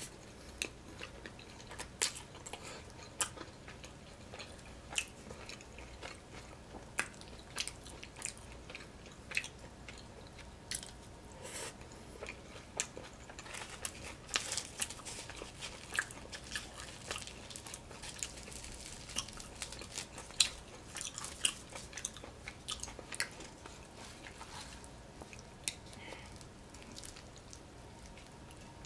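Close-miked eating sounds: a person chewing, with wet mouth clicks and smacks at about one or two a second. Around halfway through there is a denser patch of soft rustling as a piece of naan is torn apart by hand.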